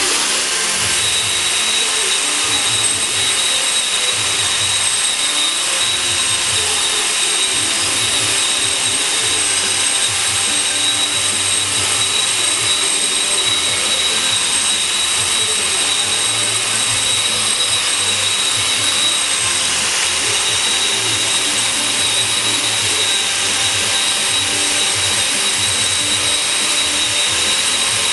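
Variable-speed angle grinder with a diamond cup wheel grinding down the top edge of a cast concrete planter: a continuous high-pitched motor whine over steady grinding noise.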